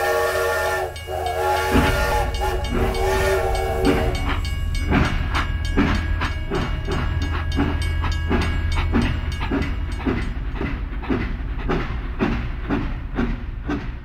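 Battery-powered toy steam locomotive sounding its electronic steam-whistle effect several times in the first few seconds, then playing a steady rhythmic chuffing effect while its motor hums and it runs along the plastic track.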